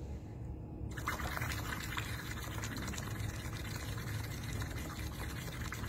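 Air blown through a drinking straw into a cup of water, bubbling steadily in one long blow that starts about a second in: a slow exhalation done as a breathing exercise.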